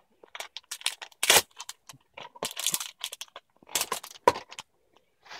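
Foil booster-pack wrapper crinkling in the hands, in short irregular bursts of crackles.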